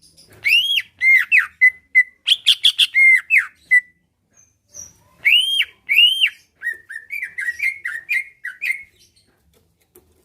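Cucak ijo (green leafbird) singing: loud phrases of arched, whistled notes that break off about four seconds in, then resume with a quicker run of wavering notes.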